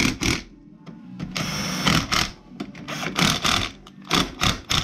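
Compact cordless impact driver running in short bursts as it drives bolts into the scooter engine, with one longer run about a second and a half in.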